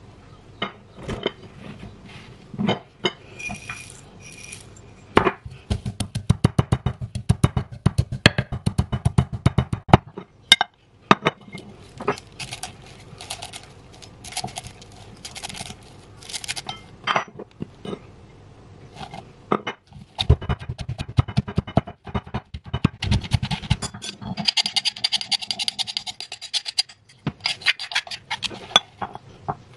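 Stone pestle pounding garlic, coriander root and white and black peppercorns in a granite mortar into a paste: runs of rapid strikes broken by short pauses.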